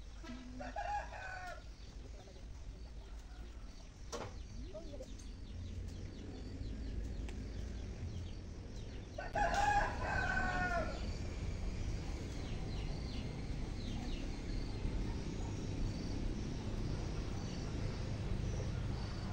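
A rooster crowing twice: a faint crow near the start and a louder, longer crow about halfway through.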